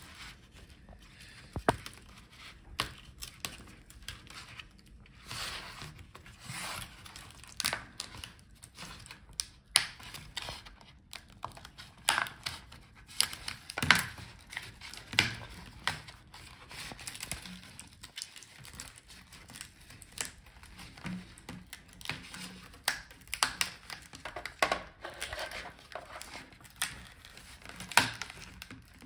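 Plastic LCD front bezel of a Lenovo ThinkPad E14 Gen 2 being pried off by hand: irregular clicks and snaps as its clips let go, with crackling and tearing as the bezel peels away from its adhesive.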